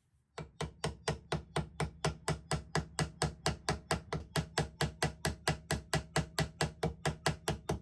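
Small hammer tapping a brass pin in a pocket knife handle, peening it over: quick, even strikes at about four to five a second with a slight metallic ring.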